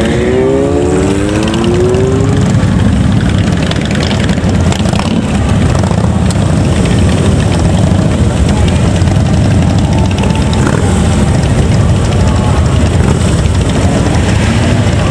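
Several Harley-Davidson V-twin motorcycles idling and creeping past at low speed, a dense, steady low exhaust rumble. In the first two seconds one engine revs up with a rising pitch.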